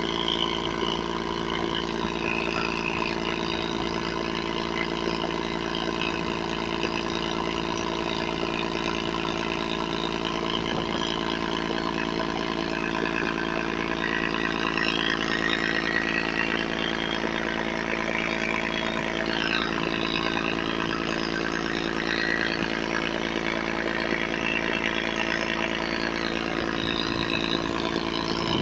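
Motorboat engine running steadily at cruising speed, with water rushing along the hull. Midway a higher engine whine rises and falls as a speedboat passes.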